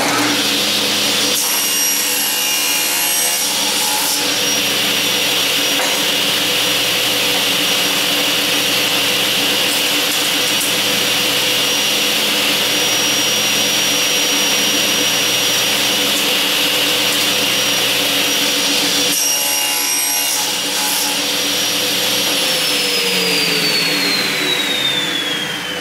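Table saw with a Freud Diablo 80-tooth non-ferrous blade starting up and running with a steady whine. It cuts through a plastic sheet twice, a couple of seconds in and again near the three-quarter mark. Near the end it is switched off and the whine falls in pitch as the blade spins down.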